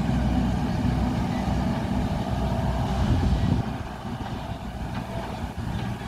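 JCB backhoe loader's diesel engine running steadily as the machine drives along a dirt track, growing quieter about three and a half seconds in as it moves off behind the trees.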